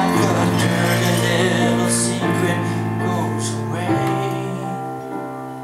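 Yamaha CP stage piano playing slow, held chords in an instrumental passage between sung verses. The chord changes about two seconds in and again about four seconds in, and the playing slowly gets quieter.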